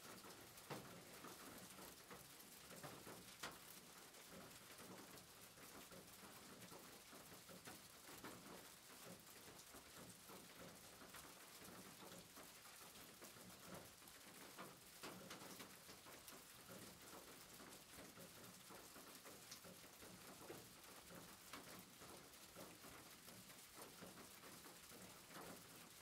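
Faint, steady rain patter on a roof, with scattered sharper drops ticking through it.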